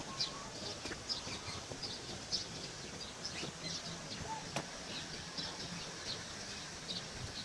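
Birds chirping: many short, high chirps repeating throughout, with one sharp click about four and a half seconds in.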